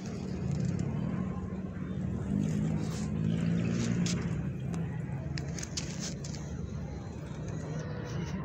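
A motor vehicle engine running nearby: a steady low rumble that grows louder and more tonal between about two and five seconds in.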